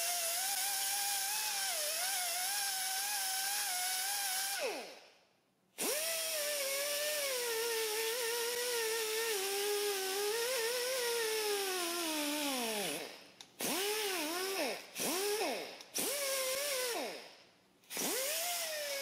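Die grinder with a Roloc disc whining as it cleans up a mounting boss on a BMW M52 engine block, its pitch sagging and wandering under load. About four and a half seconds in it is released and spins down, then it runs again. Near the end it is triggered in several short bursts, each falling in pitch as it slows.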